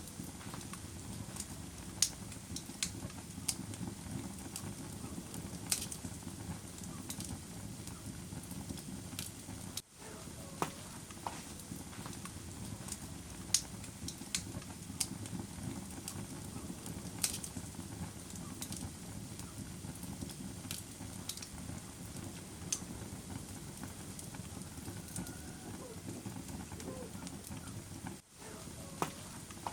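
Wood fire burning in a fireplace: a steady low rumble of flames with scattered sharp crackles and pops. The sound briefly drops out about ten seconds in and again near the end.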